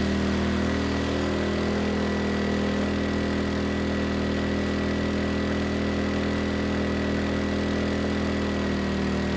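Erayak 4500PD dual-fuel inverter generator engine running steadily on gasoline under a 3,000-watt load, holding a constant speed with no sign of strain. A faint steady high tone sits above the engine's hum.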